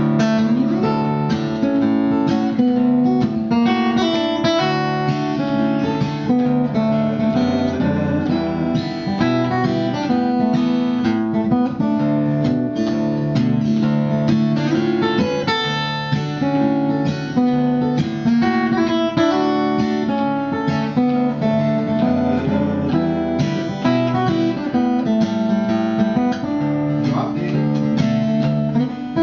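Solo acoustic guitar played fingerstyle: a plucked melody over a steady, rhythmic bass line.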